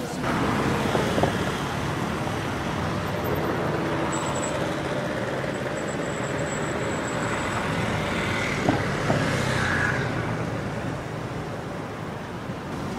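City street traffic noise: a steady wash of passing vehicles, with a few sharp knocks about a second in and twice near nine seconds, and a thin high tone for a few seconds in the middle.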